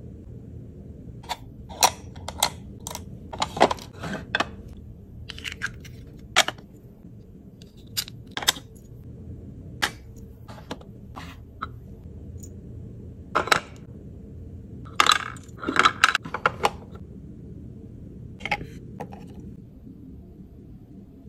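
Small plastic miniature desk parts and accessories clicking and tapping as they are handled and set in place, a scattering of short sharp clicks that bunch together a couple of seconds in and again about two thirds through, over a steady low hum.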